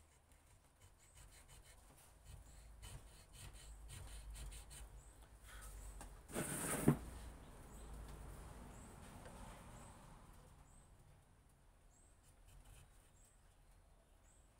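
Faint, scattered scratching and ticking of a small hand tool cutting an anti-slip checkering pattern into a wooden knife handle, with a brief louder scrape ending in a knock a little past halfway.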